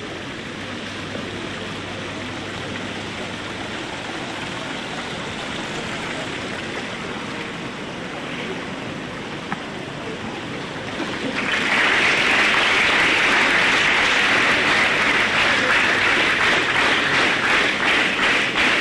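A steady background hiss, then about eleven seconds in an audience suddenly breaks into loud applause that keeps going. Near the end the clapping takes on a regular beat.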